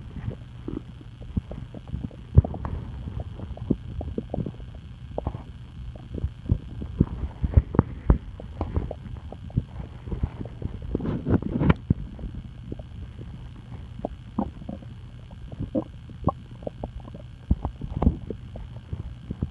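Stomach gurgling: a run of short, irregular pops and gurgles, with a longer gurgle about eleven seconds in, over a steady low hum.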